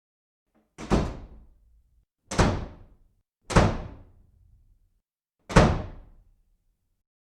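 Four heavy thuds, irregularly spaced over about five seconds, each sharp at the start and dying away quickly, with complete silence between them.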